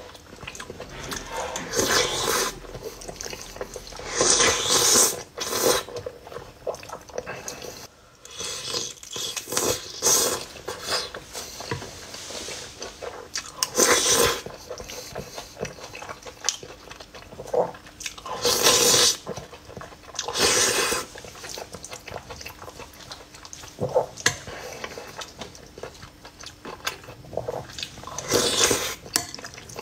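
Close-miked eating: a man slurping, smacking and chewing spoonfuls of braised meat and rice. Loud bursts of slurping come every few seconds between quieter chewing.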